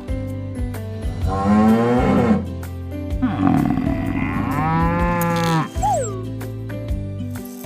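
Buffalo lowing twice: a call about a second in, then a longer, deeper one from about three seconds in.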